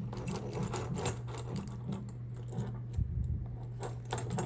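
Key turning the plug of a freshly repinned American Lock A1100 padlock through a full turn, giving a string of small metal clicks and scrapes with a duller knock about three seconds in; this is the check that the key works the reassembled pins. A steady low hum runs underneath.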